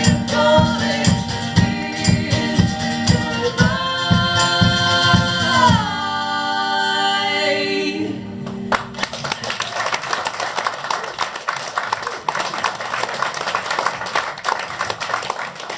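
A live song ends with steadily strummed guitar under sung vocal harmonies, closing on a long held final note. From about halfway through, a small audience applauds.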